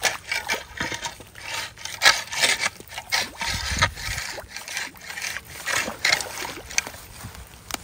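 Pole jabbed repeatedly into shallow floodwater, splashing and sloshing as it stirs leaves and debris to unclog a buried culvert. The splashes come irregularly, a few each second.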